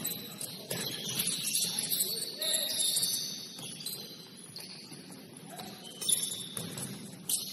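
Basketball sneakers squeaking on a gym floor: several short high squeaks, some sliding in pitch, over low gym chatter, with two sharp knocks near the end.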